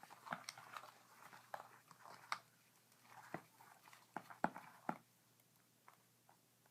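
Faint, scattered small clicks and taps of tools and small parts being handled while a tablet is taken apart, stopping about five seconds in.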